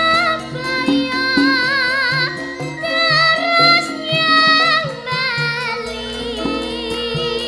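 A female sinden singing a Javanese song with a wide, wavering vibrato, accompanied by a gamelan ensemble striking steady repeated low notes.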